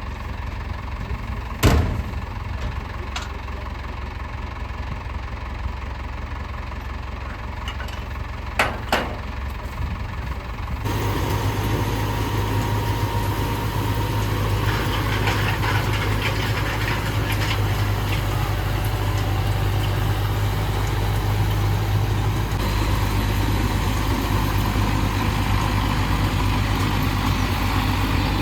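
Tractor diesel engine running steadily, with a few sharp knocks in the first ten seconds. About eleven seconds in, the sound steps up suddenly and stays louder.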